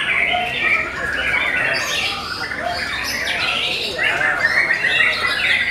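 Caged white-rumped shamas (murai batu) singing in competition: several songs of rapid whistles and chirps overlap in a continuous tangle.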